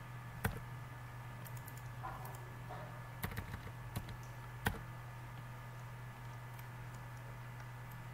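A few sharp, separate clicks of computer keys and a mouse as a material name is typed in: one about half a second in, then a cluster between three and five seconds in. A steady low hum runs underneath.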